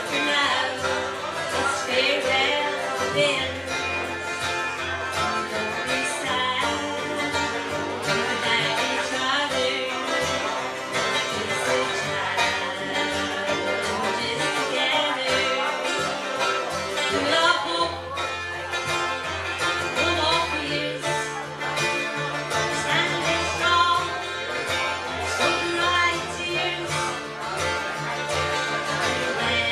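Folk song played live: a banjo picked steadily, with singing, over sustained low bass notes.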